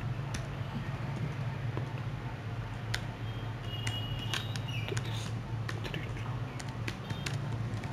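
Computer keyboard typing: scattered short key clicks over a steady low hum.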